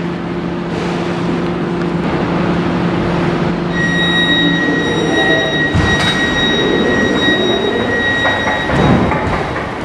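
Siemens C2 U-Bahn train standing at an underground platform, its equipment giving a steady low hum. About four seconds in, a high steady tone sets in and holds for about five seconds, over a rising and falling rumble.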